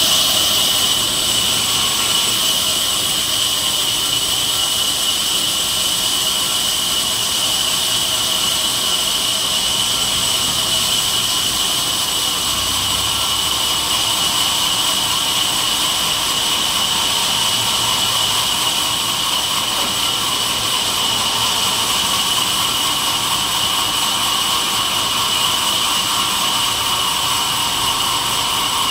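Sawmill bandsaw machine running with a steady high-pitched whine.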